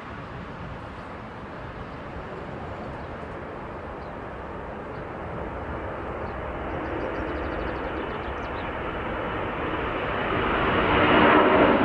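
Boeing 747-400 freighter's four jet engines at takeoff thrust: a steady rushing noise that swells as the jet rolls, lifts off and climbs toward the microphone, loudest and deepest near the end.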